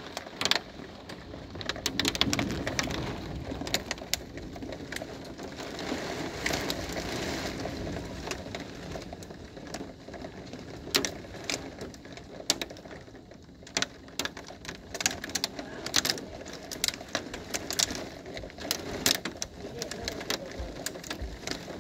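Hailstorm with heavy rain: a steady rain hiss with many sharp, irregular ticks of hailstones striking, coming thicker in the second half.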